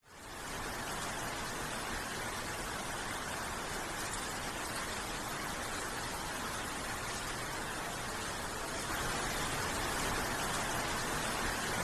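Heavy rain falling in a steady hiss, a little louder from about nine seconds in.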